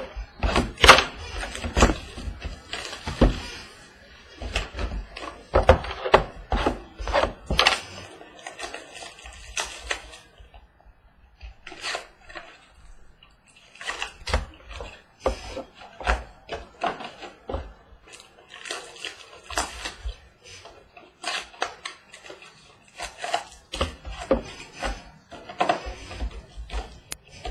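Cardboard boxes and card packs being handled and torn open: irregular crackling, tearing and small knocks, thinning out for a few seconds in the middle.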